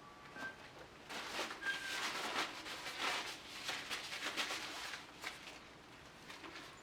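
Air blown at wet acrylic paint in irregular hissing gusts, pushing it across the canvas. The gusts are strongest from about a second in until about five seconds in, with a few short puffs near the end.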